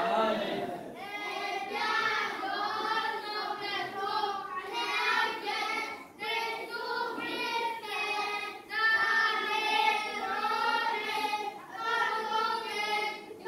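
A group of young children singing together, unaccompanied, in phrases broken by short breaths.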